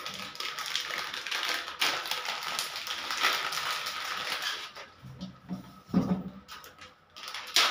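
Plastic packaging of a two-gang wall switch crinkling and crackling as it is torn open for about five seconds, followed by a few short knocks of handling.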